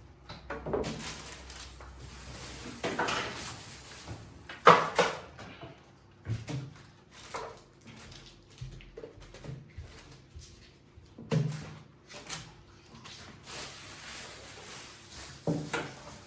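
Household handling sounds: a series of separate knocks and clatters, as of drawers or cupboard doors opening and closing and items being set down, with a sharp clack about five seconds in as the loudest.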